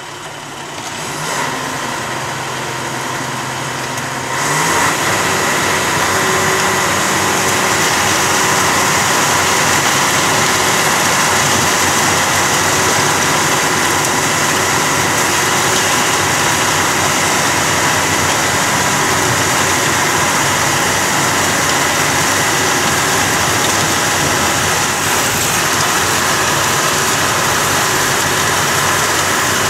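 Truck-mounted rotary snow blower working a snowbank: its engine runs steadily, then about four seconds in it comes up to full power and stays loud, with a dense steady hiss and whine as the blower throws snow up the chute into a dump truck.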